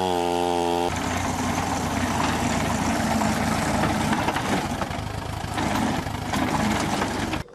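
Wood-cutting machinery running. A saw runs with a steady pitched whine for about the first second, then there is an abrupt change to a louder, rougher engine-driven machine sound, which cuts off suddenly near the end.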